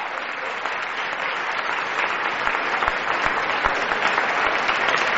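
Audience applauding a finished dance routine, a steady patter of clapping that grows a little louder.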